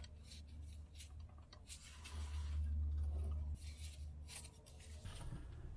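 Socket and breaker bar on the transmission's filler plug: a scatter of sharp metal clicks and short scrapes as the plug is worked loose, over a low steady rumble.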